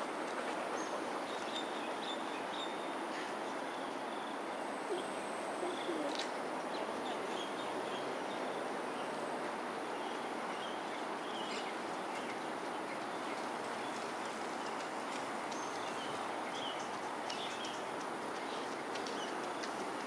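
Outdoor ambience: a steady, even rumble of distant noise with scattered faint high chirps.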